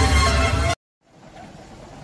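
Electronic dance music with falling pitch sweeps that cuts off abruptly under a second in. After a brief dead silence, a much quieter steady rumble and hiss follows.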